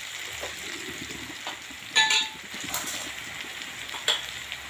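Chopped onion and tomato frying and sizzling in oil in a pan. A sharp metallic clink with a short ring comes about two seconds in, and a smaller one near the end.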